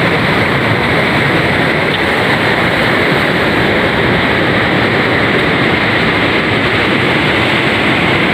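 Surf breaking and washing against the rocks of a boulder breakwater, with wind on the microphone: a steady, loud rushing noise.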